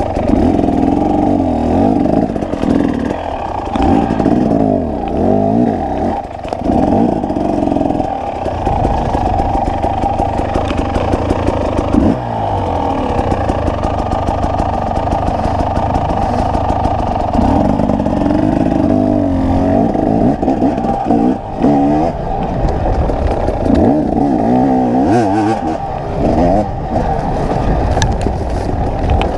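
2019 KTM 300 XC's two-stroke single-cylinder engine revving up and down over and over as the dirt bike is ridden along a rough bush trail.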